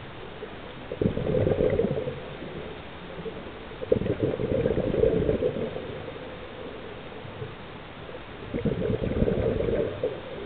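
Scuba regulator exhaust: the diver's exhaled bubbles gurgling out underwater in three bursts, each a second or so long, one per breath.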